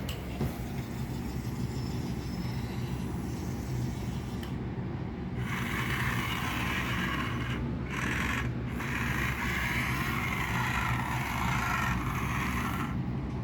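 Remote-controlled toy wheel excavator's electric motors and gears running: a steady low hum, with a louder, higher grinding from about five seconds in as another function is worked. The grinding stops briefly twice and cuts off near the end.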